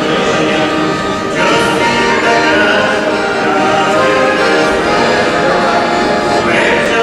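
A mixed folk choir of women and men singing a folk song together in sustained, held phrases. A new phrase begins about a second and a half in, and another near the end.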